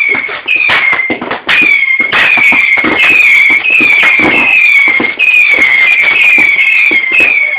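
Fireworks going off loudly: a fast run of whistles, each falling slightly in pitch, repeating about twice a second over sharp cracks and bangs.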